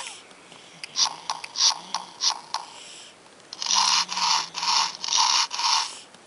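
Electronic sound effect from a children's push-button sound book, played through its small speaker: a mechanical clattering of short strokes, a few scattered ones and then a quick run of about three a second in the second half.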